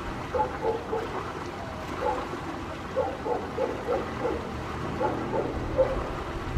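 A dog barking over and over in short yelps, in quick runs of three or four, over a low steady rumble.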